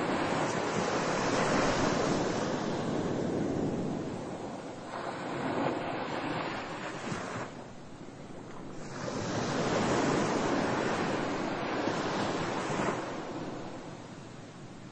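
Ocean surf washing in, rising and falling in slow surges several seconds apart.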